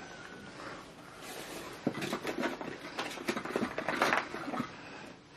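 Small glass perfume bottles handled and clutched together, giving a run of light clicks, knocks and rustling from about two seconds in, busiest around four seconds.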